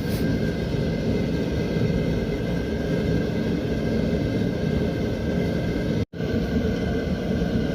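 Mr. Heater propane heater running on its high setting: a steady, noisy roar with a faint steady tone above it. The sound drops out for an instant about six seconds in.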